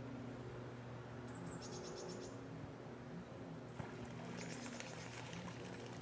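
Faint outdoor ambience: a steady low hum of distant road traffic, and twice a short high note followed by a rapid, high buzzing trill lasting about a second.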